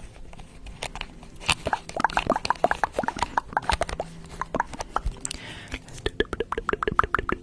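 Close-miked ASMR mouth sounds: wet clicks and lip pops, quick and irregular, as lips work against a small white stick held at the mouth. They come faster and more evenly near the end.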